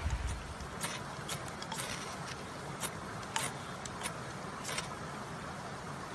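Steel striker scraped hard along a magnesium fire-starter rod to throw sparks onto dry tinder: about seven short, sharp, high-pitched rasps at an uneven pace.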